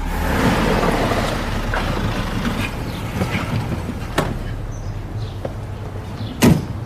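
A car pulling up and coming to a stop, its noise fading after the first couple of seconds, then a click and a car door shutting near the end.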